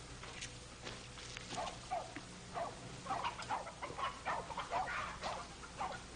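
A quick, irregular run of short animal calls, starting about a second in, over a faint steady hum.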